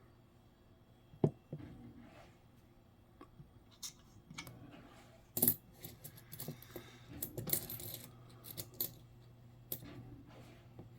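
Nickels clicking and clinking together as they are handled and set down one by one: scattered small metallic taps, with a sharper clink about five seconds in and a quick run of clinks a couple of seconds later.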